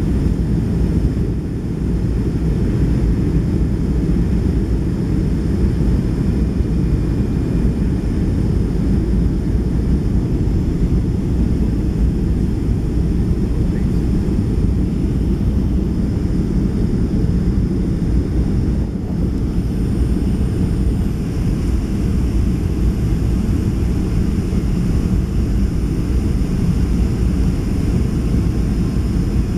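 Steady cabin noise inside a Boeing 757-200 on approach, heard from a window seat: a continuous low rumble of engines and airflow with a faint high whine above it.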